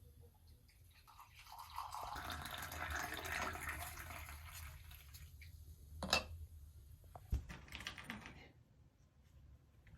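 Liquid poured into a vessel for a few seconds, the sound rising in pitch as it fills, followed by two sharp clinks.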